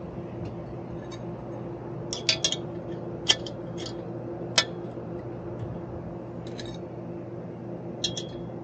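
Sharp metallic clicks and clinks from a metal conduit strap and conduit being handled against a wooden utility pole: a quick cluster about two seconds in, single clicks a little later, and another pair near the end. A steady low hum runs underneath.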